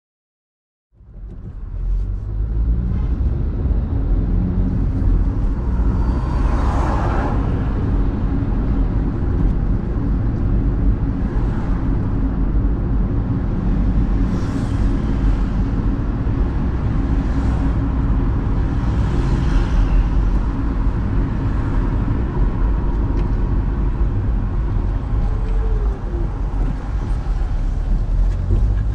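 A car driving along a city street, heard from inside the car: a steady low road and engine rumble that fades in about a second in, with a few brief swells of noise as traffic goes by.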